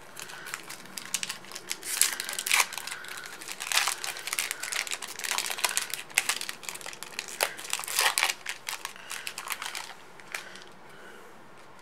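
A Pokémon TCG Generations booster pack's foil wrapper crinkling and tearing as it is opened, in irregular crackles that go quieter about ten seconds in.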